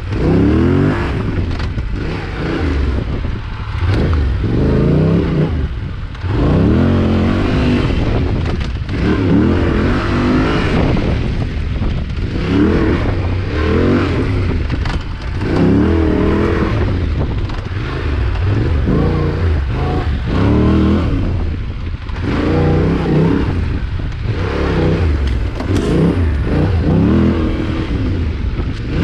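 Yamaha Ténéré 700's parallel-twin engine revving up and falling off again and again, every couple of seconds, as the bike is ridden on tight dirt single-track, with clatter and scraping from the bike and brush.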